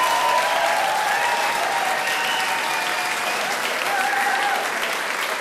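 Audience applauding, the clapping slowly dying down, with a few voices in the crowd.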